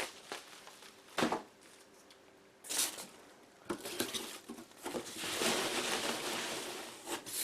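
Handling of a cardboard shipping box and its packing material: a few short knocks and rustles, then a longer rustle about five seconds in.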